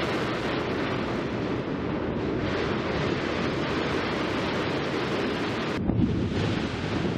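Wind buffeting the microphone: a steady, loud rushing noise, with a brief dip and then a low surge about six seconds in.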